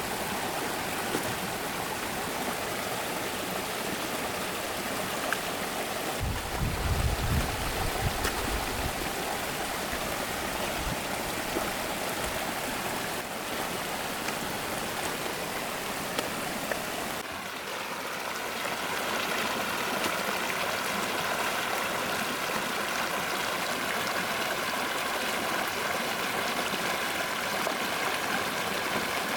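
Stream water running steadily, with a brief low rumble about six seconds in; the sound of the water shifts a little past the halfway point.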